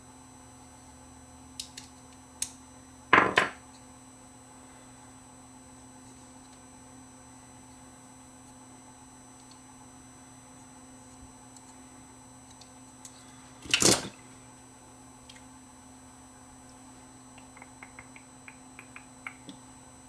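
Hands handling the small plastic parts and circuit boards of a security camera being taken apart: a few light clicks, two loud knocks (one about three seconds in, another about two-thirds of the way through) and a run of small ticks near the end, over a steady faint hum.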